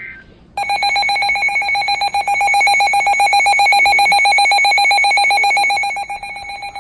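NOAA Weather Radio (station KEC86) Emergency Alert System alert tone for a Special Marine Warning, played through a weather radio receiver: a loud, steady alarm tone that starts about half a second in and drops in level near the end.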